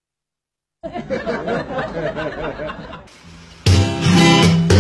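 A beat of silence, then about two seconds of wavering chuckling laughter, then strummed acoustic guitar music starting again a little over halfway through.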